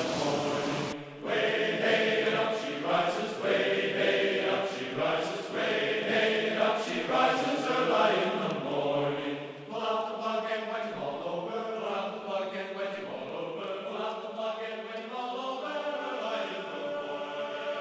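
Background music: a choir singing a chant-like tune.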